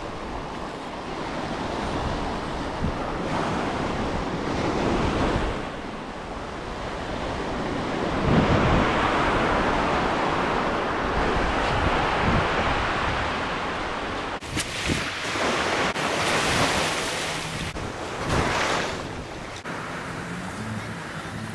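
Ocean surf washing over a rocky reef shoreline, rising and falling in slow swells, with wind gusting on the microphone, strongest in the second half.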